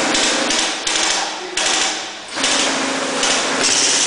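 Airsoft electric guns firing full-auto: a fast mechanical clatter in several bursts, with short gaps between them.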